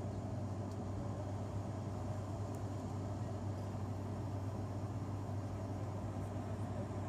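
Cabin noise of an ATR 72 turboprop airliner climbing out: a steady low propeller drone under an even rush of engine and air noise.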